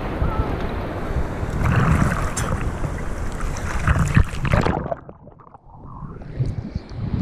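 Strong surf splashing and washing over a waterproof action camera held at the waterline. About five seconds in, the camera goes under a wave and the sound turns muffled and much quieter for a second or so, then the splashing comes back.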